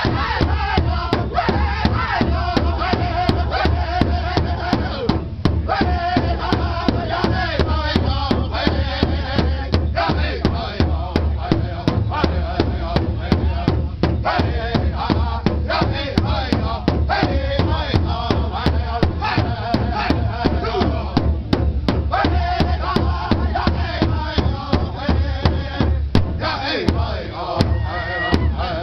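Powwow drum group singing in unison over a steady, even beat struck together on a large shared powwow drum.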